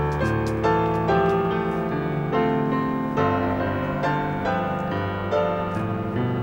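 Background piano music, with notes and chords changing every half second to a second.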